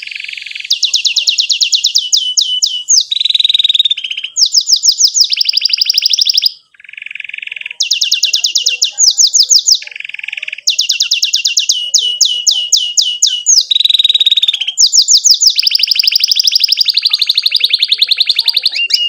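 Domestic canary singing a long song of rapid trills, each a fast run of one repeated note, switching to a new trill every second or two. There is a short break about six and a half seconds in.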